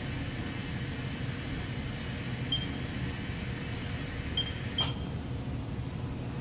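Haas VF-3SS vertical machining center running with a steady low hum from its motors and fans. It is broken by a few short high chirps and a single sharp click just before five seconds in.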